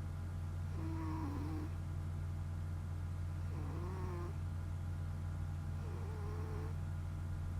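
A sleeping domestic cat snoring loudly: three snores, one about every two and a half seconds, each carrying a whistling tone that slides in pitch. A steady low hum runs underneath.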